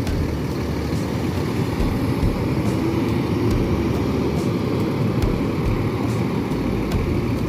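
Steady low rumble of a tour bus's diesel engine running close by, with a faint hum rising out of it a few seconds in.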